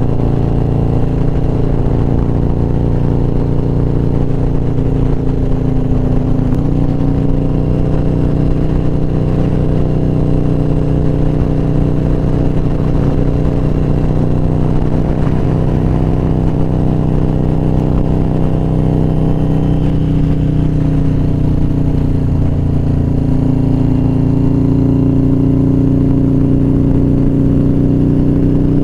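V-twin cruiser motorcycle engine running steadily under way, heard from the rider's seat. Its pitch steps to a new level about a quarter of the way in and again near the end.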